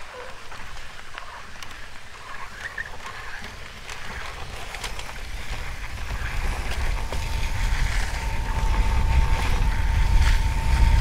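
Recumbent trike rolling over snow, with wind rumbling on the microphone and the noise growing louder toward the end; a steady high whine joins about seven seconds in.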